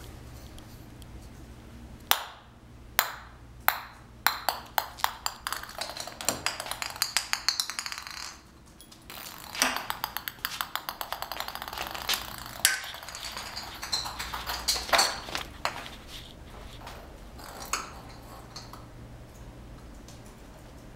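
Dented ping pong ball bouncing and clicking on a hardwood floor as a cat bats it around. Sharp single hits alternate with runs of bounces that speed up and die away, several times over.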